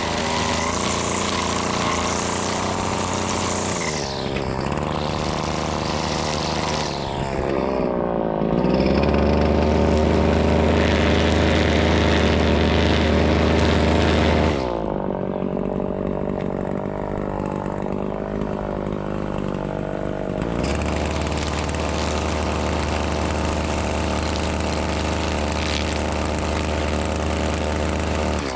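Two-stroke engine of a Husqvarna 525L string trimmer running continuously, with the throttle changing: it eases off about four seconds in, revs to its loudest for several seconds from about eight seconds in, drops back, and comes up again near three-quarters of the way through.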